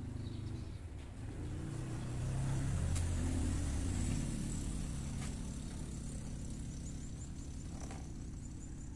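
Low rumble of a motor vehicle engine going by, swelling about two to five seconds in and then easing off. Over it come a few faint clicks and scrapes as parcel tape is cut with a knife.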